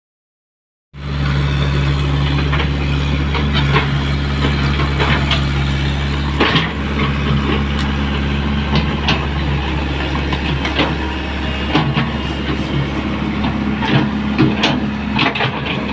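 Komatsu PC75 hydraulic excavator's diesel engine running steadily at idle, with scattered metallic clicks and ticks over it. The sound comes in abruptly about a second in.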